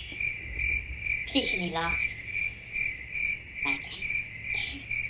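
A crickets-chirping sound effect, a steady chirp pulsing about twice a second: the stock gag for a joke that falls flat. A faint voice murmurs under it about a second and a half in and again near the end.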